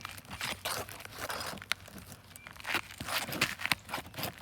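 Roof snake nail puller scraping and sliding under asphalt shingles: irregular crinkling, scraping and tearing noises with a few sharp clicks.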